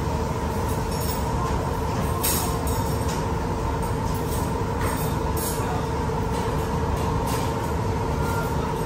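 Steady, loud machine-like rumble and hum with a constant tone, with a few short high-pitched scrapes of metal cutlery on plates.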